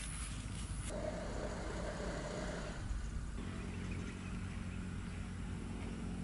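An engine running steadily with a low hum; its tone changes about three seconds in and then holds steady.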